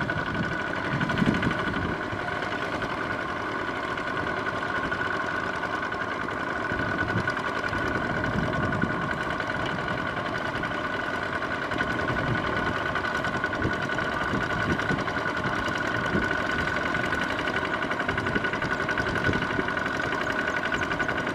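Single-cylinder diesel engine of a two-wheel walking tractor running steadily under load as it drags its cage wheels through flooded paddy mud, with a steady high whine above the engine's chugging.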